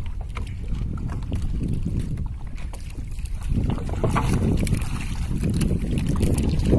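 Steady low rumble of a small outrigger fishing boat under way at sea, with wind buffeting the microphone, growing louder about three and a half seconds in.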